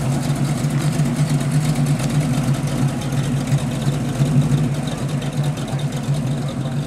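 1987 Chevrolet Monte Carlo SS's V8 engine running near idle with a steady, low exhaust note as the car rolls slowly by.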